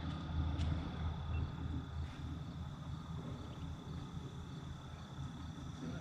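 Steady high-pitched insect drone, like crickets, over a low steady rumble.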